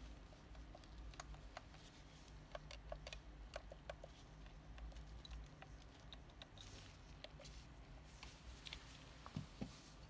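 Faint, irregular clicks of the stainless steel push buttons on a Videx VX800N access keypad being pressed one after another, on buttons with rebuilt keystroke seals. A single louder knock comes near the end.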